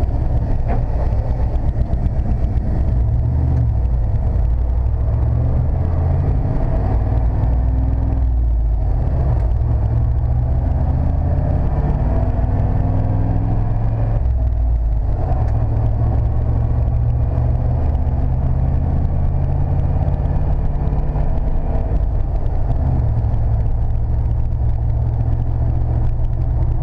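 1995 Chevrolet C/K 1500 pickup driving along a road, heard from inside the cab: a steady engine and road rumble. The engine note drops away briefly twice, around eight and fourteen seconds in.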